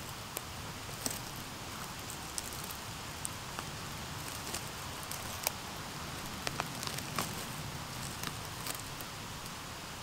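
Scattered small crackles and snaps of dry leaves, twigs and soil as a porcini mushroom is gripped and worked loose from the forest floor, over a steady soft hiss.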